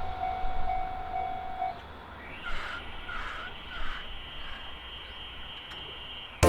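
Railway level crossing bell ringing its repeated clang while a passing train's rumble fades, the bell stopping about two seconds in. Then a crow caws three times over a faint steady high tone.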